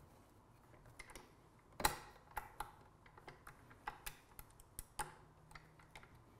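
Light metallic clicks and taps at uneven intervals from a wrench and Allen key working the bolts and nuts of the trike frame's centre joint as they are tightened, with one sharper clink about two seconds in.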